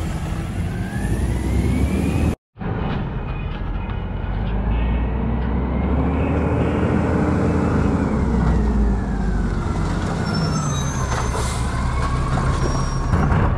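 A natural-gas Mack garbage truck drives off, its engine rising in pitch. After a short break it drives up the street, the engine pitch climbing and then falling as the truck slows. A few high brake squeals come as it pulls up near the end.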